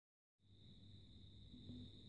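Near silence: faint room tone with a steady high-pitched whine and a low hum.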